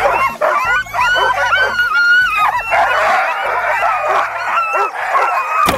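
A team of Alaskan huskies yipping and barking, many dogs at once with their calls overlapping, in the excited clamour of sled dogs being hooked up for a run.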